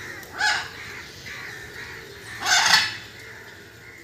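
Two loud, harsh bird calls: a short one about half a second in and a longer one about two and a half seconds in, over faint steady chattering of other birds.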